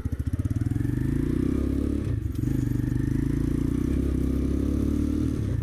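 X-PRO 125cc motorcycle engine pulling away from low revs, its note climbing and then running steadily, with brief dips about two seconds in and near the end as the throttle is rolled off for gear changes. The cheap bike vibrates a lot and makes odd noises the rider keeps hearing but cannot yet place.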